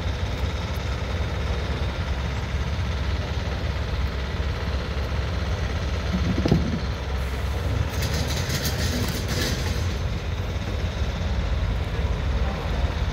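Heavy-haulage lorry's diesel engine running with a steady low rumble. There is a single thump about six and a half seconds in and a brief hiss of air from about eight seconds.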